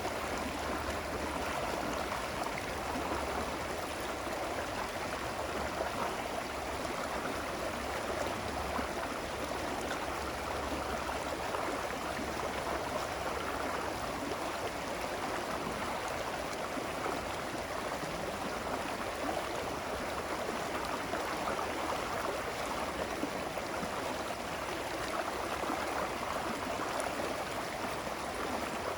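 Running water flowing in a steady, even rush, like a stream.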